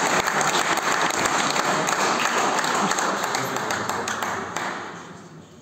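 Spectators applauding with many hands clapping at once, the clapping dying away near the end.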